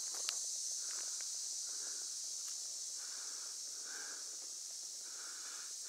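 Steady high-pitched drone of a late-summer insect chorus, with soft footsteps on a gravel road about once a second.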